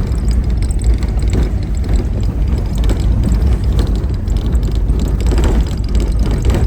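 A 4x4 vehicle driving over a rough, bumpy unpaved road: a steady low engine and road rumble, with frequent short rattles and knocks as it jolts over the bumps.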